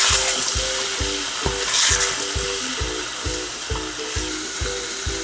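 Meat curry sizzling in a hot pan as a wooden spatula stirs it, with a louder hiss at the start and again about two seconds in as the just-added water hits the hot pan. Background music with a steady beat plays underneath.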